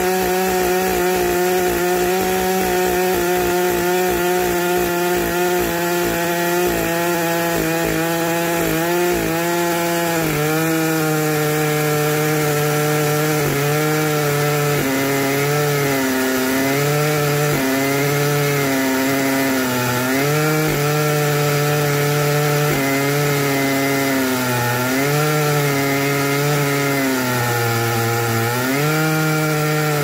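Large two-stroke chainsaw mounted on a chainsaw mill, running at full throttle while ripping a log lengthwise. The engine note holds steady at first, then from about ten seconds in sags and picks up again and again as the cut loads it.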